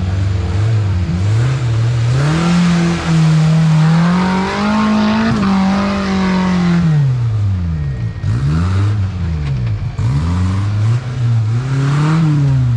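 Small short-wheelbase off-road 4x4's engine revved hard and let off again and again as it is driven through deep mud, its pitch rising and falling several times, highest and longest about midway.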